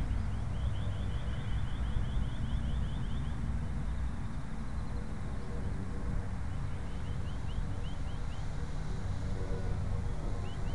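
Wind buffeting the microphone with a steady low rumble, while a rapid run of short high chirps repeats several times a second, dropping out in the middle and returning near the end.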